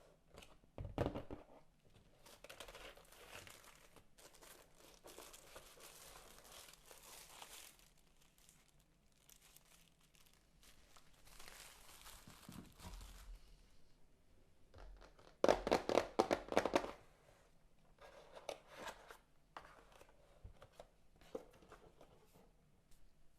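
Cardboard and paper packaging of a keyboard box being opened and handled: rustling, crinkling and tearing, with a short thump about a second in. The loudest moment, near two-thirds of the way through, is a quick run of crackling tears.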